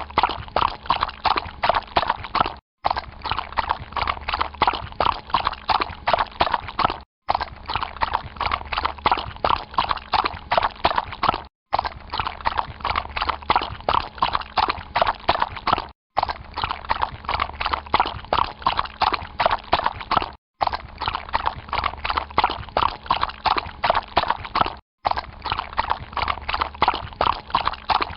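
A horse walking through water, its hooves splashing and clopping in a steady stream. The same stretch of a few seconds repeats, broken by a short dropout about every four and a half seconds: a looped recording.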